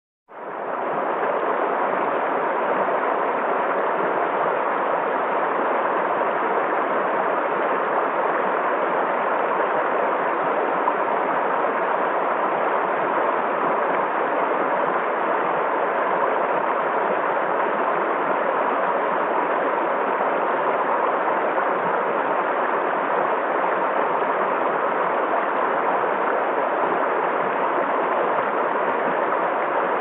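Shallow stream rushing over rocks: a steady, even rush of water that fades in at the very start.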